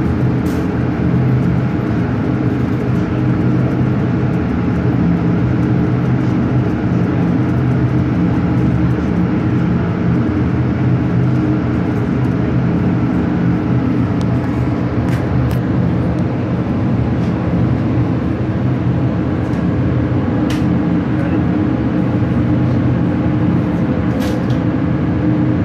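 Steady, loud mechanical drone with a low multi-tone hum, the constant machinery noise of an indoor shooting range. A few faint, sharp clicks sound over it, at about half a second, twice around fifteen seconds in, and near the end.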